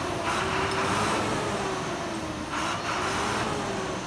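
Dump truck running with its body raised on the hydraulic ram while a load of river sand slides out the back. There is a steady rushing noise with a wavering engine or pump note, and the hiss grows brighter about two and a half seconds in.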